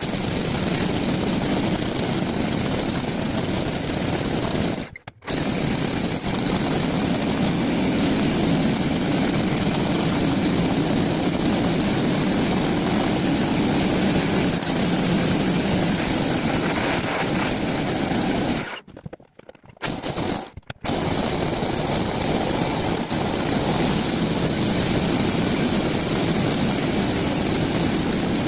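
Power drill running steadily under load, boring through a wall, with a constant high whine over the motor noise. It stops briefly about five seconds in and twice more in quick succession around twenty seconds in, then runs on.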